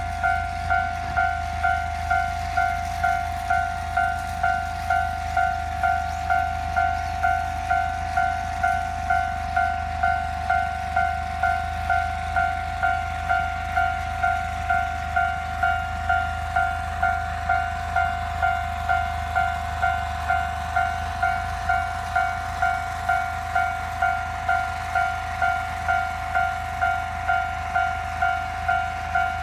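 Japanese level crossing alarm ringing its repeating electronic 'kan-kan' tone, a little under two strokes a second, with a low steady hum underneath.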